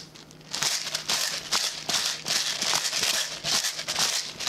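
Salt and pepper shaken from a shaker over a bowl, the grains rattling in quick, even shakes, about two to three a second, starting about half a second in.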